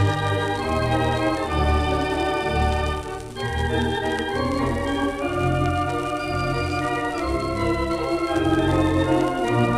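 Standaart 3/10 theatre organ (three manuals, ten ranks) playing held chords of an old popular-song medley over a pedal bass, heard from a 1933 78 rpm record. There is a short break in the chords a little over three seconds in, then the playing goes on.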